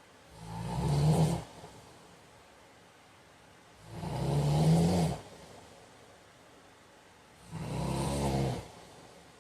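A man snoring: three low snores, each about a second long, coming roughly every three and a half seconds. Each one swells and then stops abruptly.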